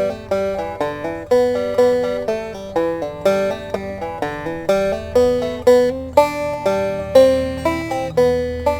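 Banjo played clawhammer style: a steady, rhythmic run of bright plucked notes with ringing strings, picking out an old-time fiddle tune.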